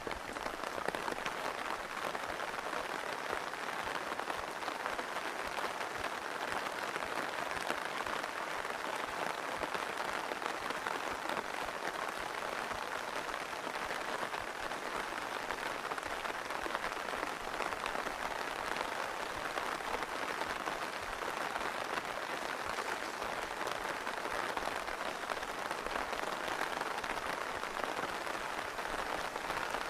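Rain falling steadily, an even, unbroken patter of drops.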